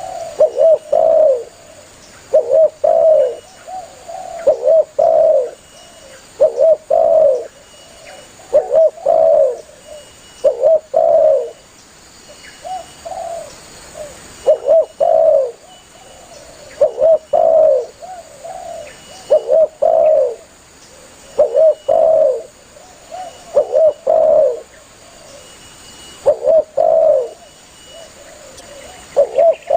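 Spotted dove (tekukur) cooing over and over. Its short phrases of two or three low coos come about every two seconds.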